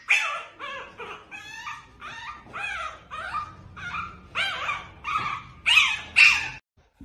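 A small puppy gives a run of high yips and whimpers, about two a second, that stop shortly before the end.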